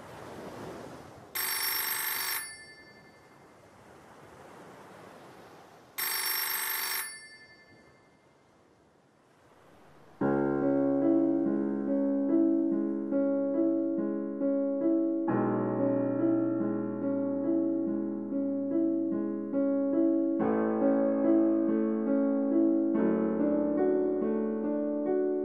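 A telephone ringing twice, each ring about a second long, about five seconds apart. About ten seconds in, slow piano music starts and plays on.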